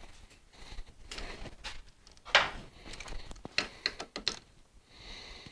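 Hand tools clicking and clattering as the torquing of the motorcycle's front-end bolts begins, with a sharper knock about two and a half seconds in and a quick run of clicks near four seconds.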